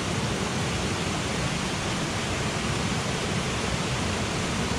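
Steady rushing of a mountain headwater stream flowing over rocks.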